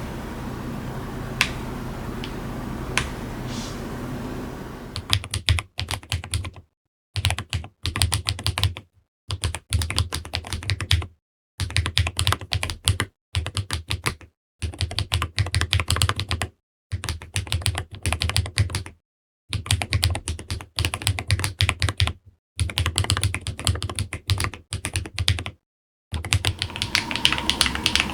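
Typing on a keyboard fitted with Gateron Jade Delta Dark magnetic (Hall effect) switches, in a Wooting 80HE with a polycarbonate plate, a KBDfans GT-80 case and PBT Cherry-profile keycaps. It opens with a few single key clicks over a steady low hum. After about five seconds come stretches of fast, continuous typing, broken by short silences.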